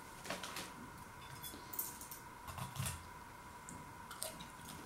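Faint scattered clicks and light knocks of a cardboard packet being put down and a fork and food being handled at a bowl while eating battered scampi, over a faint steady tone.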